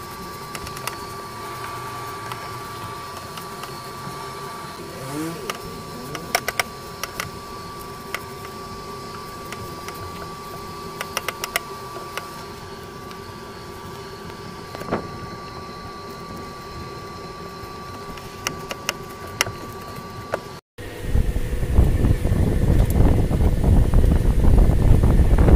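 Scattered sharp clicks of metal parts and tools being handled around an engine's air intake hose and clamp, over a steady background hum. About three quarters of the way in the sound cuts out briefly and gives way to a much louder, even low noise.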